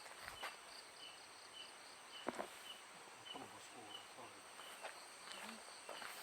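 Night insects: a cricket-like chirp repeating about twice a second over a steady high-pitched insect buzz. A few faint knocks sound now and then, the clearest about two seconds in.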